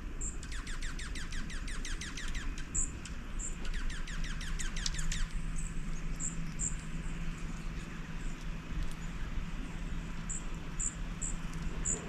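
Songbirds calling: two fast trills of quick down-slurred notes, each lasting about a second and a half, and short, thin, very high chirps scattered through the rest.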